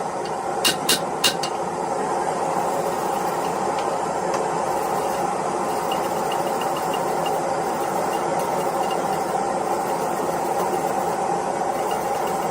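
Steady roar of a blacksmith's forge running, with three quick hammer blows ringing on metal about a second in and a few faint light taps later on.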